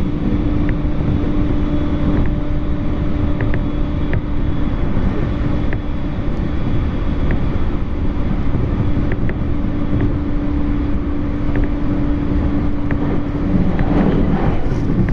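Running noise of a JR East E231 series commuter train heard from inside the car: a steady rumble with a constant hum and light clicks every second or so.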